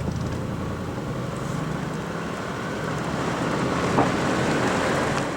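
Motor vehicle driving along, a steady engine hum under road and wind noise, with one short knock about four seconds in.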